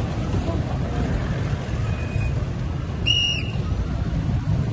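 Steady low rumble of a vehicle driving past, with one short, high whistle blast about three seconds in, like a traffic officer's whistle.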